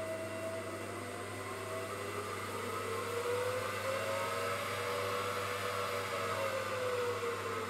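Mill spindle motor running with a whine that rises in pitch about halfway through and falls again near the end, over the steady hum and hiss of the control enclosure's cooling fans.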